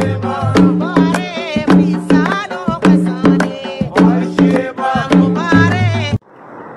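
Background music: a song with a singing voice over drums and steady low notes. It cuts off suddenly about six seconds in, giving way to a steady rushing noise.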